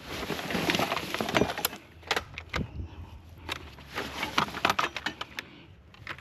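Hard objects clattering and knocking irregularly as a kerbside junk pile is rummaged through, in two busy spells with a lull between them.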